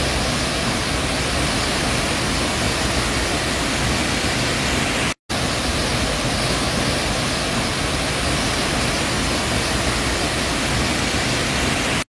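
Large waterfall plunging into its pool: a steady, even rush of falling water. It drops out for a split second about five seconds in.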